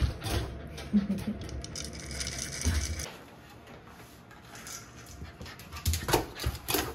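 Six-month-old Shiba Inu puppy whining eagerly at feeding time, with two short yelps near the end and low thumps as it jumps up.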